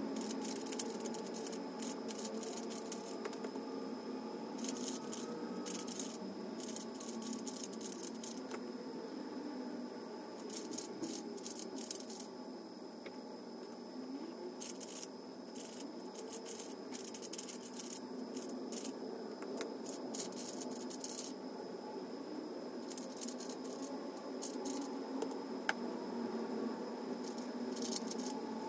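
A 3x3 plastic speedcube turned quickly by hand: runs of rapid clicking turns in bursts of a few seconds, with short pauses between, over a steady low background hum.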